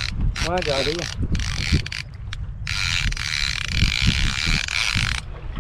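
Okuma trolling reel working against a hooked fish during the fight, its gears and ratchet whirring steadily for a couple of seconds in the second half. Wind buffets the microphone throughout.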